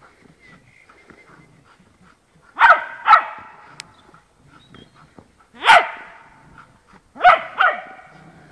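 Dog barking during rough play over a stick: five loud, sharp barks, two in quick succession about a third of the way in, one a little past the middle, and two more close together near the end.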